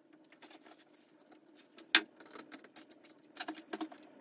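Small hardware and a strap being handled against a plastic tackle crate while a support strap is fitted: scattered light clicks and rattles, with one sharp click about two seconds in and a cluster of clicks near the end.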